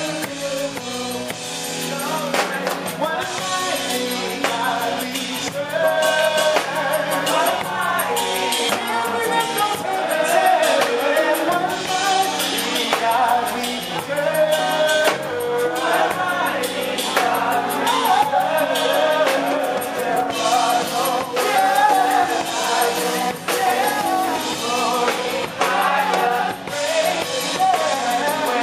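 Live gospel music: singers performing into microphones over a band with a drum kit, the singing running continuously with no pauses.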